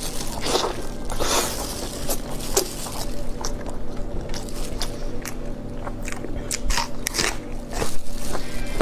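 Close-up eating sounds: a person biting and chewing food, with irregular crunches and wet smacks.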